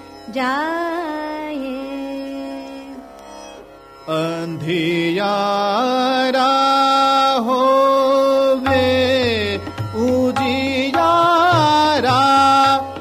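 Hindustani classical vocal in Raag Hansdhwani, a sung passage of the bandish: a voice holding long notes with glides and ornaments between them, over a low steady drone that comes in and out.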